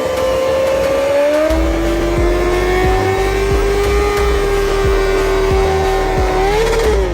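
Superbike's inline-four engine held at high revs, its tone climbing slowly and then holding steady; near the end it rises briefly and then falls away. Music with a steady beat plays underneath.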